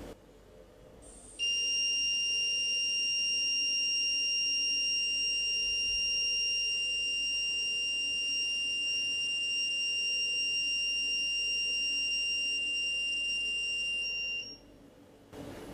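The Phonefix Shortkiller's buzzer sounding one long, steady, high-pitched alarm tone for about 13 seconds, starting about a second and a half in and cutting off near the end. It is the box's warning that a big current has sent it into self-protection.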